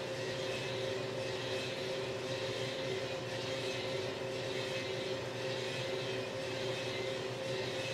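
Small gas-fired drum coffee roaster running mid-roast: a steady hum of its drum motor and exhaust fan, with two held tones over an even hiss.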